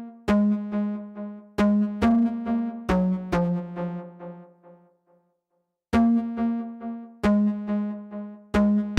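Electronic music: sustained synthesizer chords struck about every second and a half, fading after each, with a brief pause about five seconds in.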